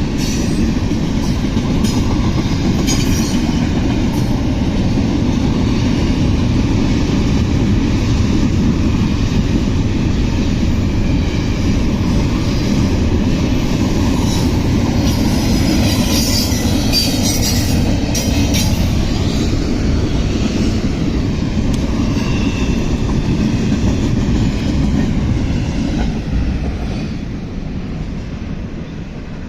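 CSX freight train rolling past close by: a steady, loud rolling noise of its wheels on the rails, which grows quieter in the last few seconds as the train moves off.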